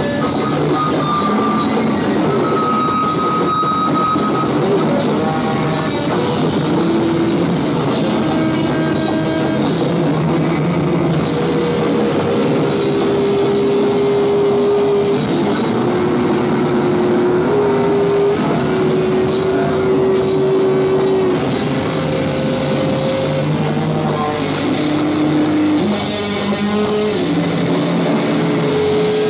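Live experimental rock band playing loudly: distorted electric guitar and drum kit in a dense, continuous wash, with long held notes that shift in pitch every few seconds.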